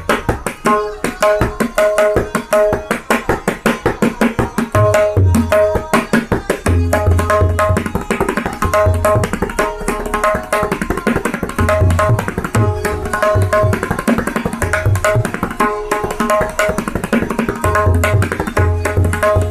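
Tabla played solo: a fast, dense run of sharp strokes on the right-hand dayan with its ringing pitched note, joined in recurring phrases by deep, booming bass strokes on the left-hand bayan.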